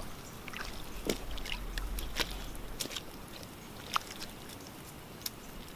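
Scattered faint clicks, ticks and rustling as a small, just-landed bass and the fishing line are taken in hand, with a low rumble of wind on the microphone about a second in.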